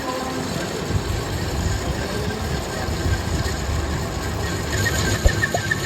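Metal lathe running steadily, a continuous mechanical rumble with a few light clicks near the end.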